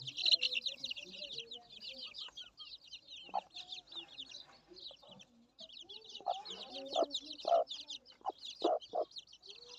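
Young Aseel chickens clucking in short calls over constant high, rapid chirping, with a run of louder clucks about six to nine seconds in.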